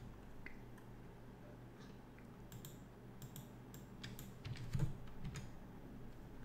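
Faint computer keyboard and mouse clicks: scattered taps in small groups, about two and a half seconds in and again from about four to five seconds in.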